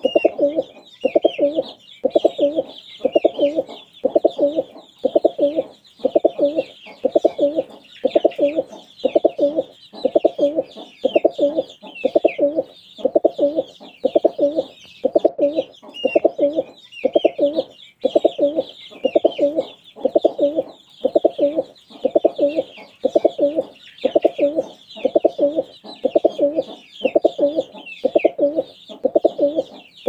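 Domestic pigeon cooing over and over in a steady rhythm, about one coo a second, with chicks peeping continuously in high, short notes.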